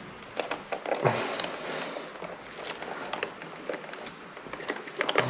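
Handling noises: scattered clicks, light knocks and rustling, with a louder knock about a second in and another near the end.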